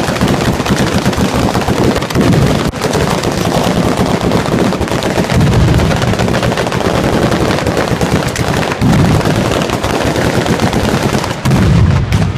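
Ground-level fireworks battery (batteria alla bolognese) going off in a rapid, unbroken string of firecracker bangs. Heavier volleys of deeper booms come about two, five and a half, nine and eleven and a half seconds in.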